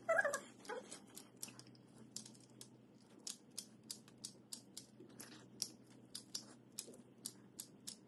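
Hot-melt glue gun's trigger feed clicking repeatedly and irregularly, about two or three sharp clicks a second, as glue is pushed out. A brief whine-like sound comes at the very start.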